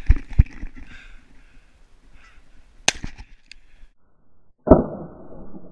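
A Canada goose honking faintly, then a sharp click, then one shotgun blast about three-quarters of the way through that dies away over about a second: a finishing shot at the head of a wounded goose on the ground.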